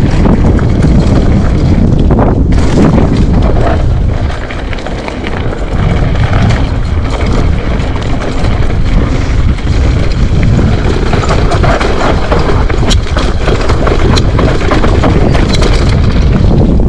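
Mountain bike riding fast down a dirt trail: steady wind buffeting the action camera's microphone over tyre noise, with many sharp clicks and rattles from the bike over rough ground. The noise eases briefly about four seconds in.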